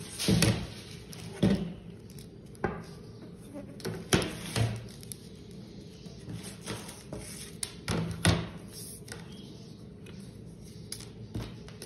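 Sheets of thin pattern paper rustling and crinkling as they are lifted, shifted and smoothed flat on a table by hand. Several short taps and knocks of handling are mixed in, the clearest about half a second, four seconds and eight seconds in.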